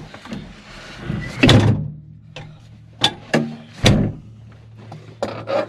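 A series of sharp thunks and knocks, about six in five seconds, the loudest near the middle, over a steady low hum.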